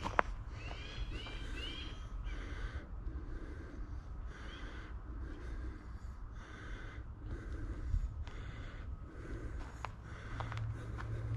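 Footsteps at a steady walking pace, about three steps every two seconds. About a second in, a bird gives four quick arching chirps.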